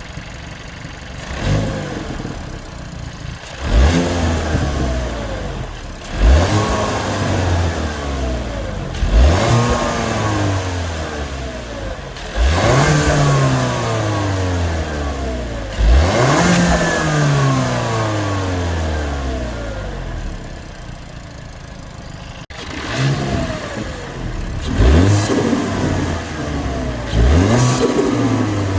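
2021 Hyundai Veloster N's turbocharged 2.0-litre four-cylinder breathing through a SXTH Element carbon fibre intake, revved again and again. Each rev climbs sharply and falls away slowly, with a quicker run of revs near the end.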